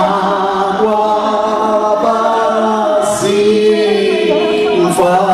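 A group of voices singing a slow hymn in isXhosa, with long held notes that glide between words.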